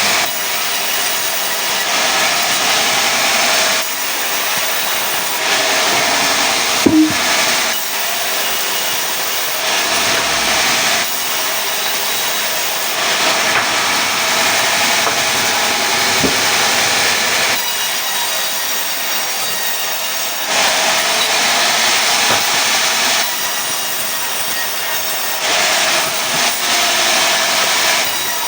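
Sawmill saw cutting through pine wood, a loud steady sawing noise whose tone shifts every few seconds as the cut goes on, with two brief sharp clicks partway through.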